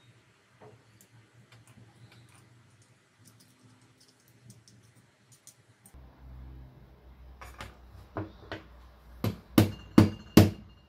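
Small metal kerosene-lamp burner parts being handled and fitted by hand: faint light clicks at first, then, a little past halfway, a run of sharp metallic knocks, about two a second, growing louder toward the end.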